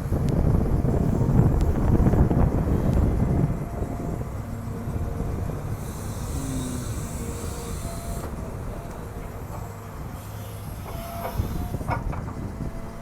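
A Cat 320GC excavator's diesel engine works under load with a heavy rumble for the first few seconds, then settles to a steadier drone. A high hiss comes in about six seconds in and lasts around two seconds.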